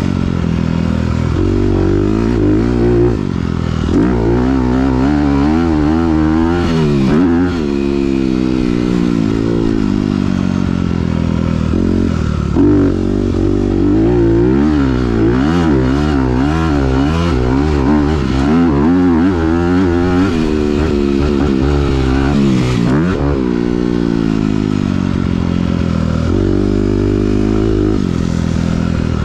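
2021 Honda CRF250R single-cylinder four-stroke engine, fitted with a Yoshimura RS9T titanium exhaust, ridden hard on a motocross track. Its pitch climbs and drops over and over as the rider accelerates through the gears and rolls off the throttle.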